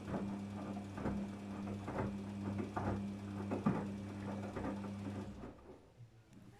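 Daewoo DWD-FT1013 washing machine running a wash: the motor hums steadily as the drum turns, with the wet laundry tumbling in soft repeated thumps and swishes. The drum stops about five seconds in and the sound dies away.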